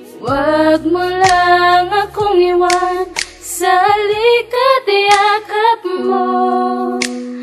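A sung vocal melody with bending, held notes over a backing beat, with drum hits about once a second and a low bass line that drops out about two thirds of the way in.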